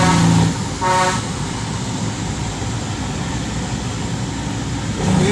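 Vehicle noise while following a heavy truck downhill: a short horn toot about a second in, then steady engine and road noise.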